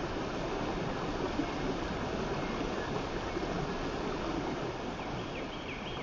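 Fast, shallow stream running over rocks: a steady rush of water. Near the end a few short, high, falling notes come in over it.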